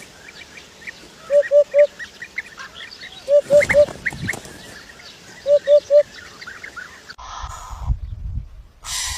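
Birds calling: a call of three short notes, repeated three times about two seconds apart, over softer high chirps. Short bursts of noise come near the end.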